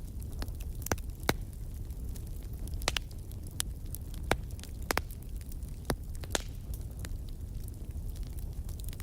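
Wood fire crackling in a fireplace: irregular sharp pops and snaps, about a dozen, over a steady low rumble of the flames.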